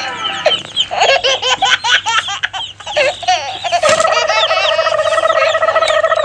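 Edited-in cartoon sound effects. First a run of quick, high, baby-like giggling, then about four seconds in a long, steady held 'hmm' note.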